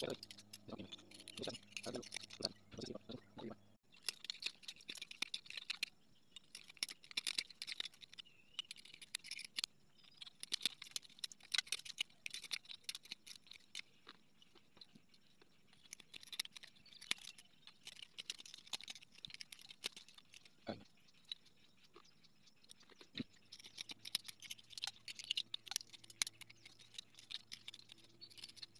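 Small pliers nibbling chips off the edge of a thin piece of glass: rapid crackling and crunching clicks in runs with short pauses, as the glass is trimmed into an oval.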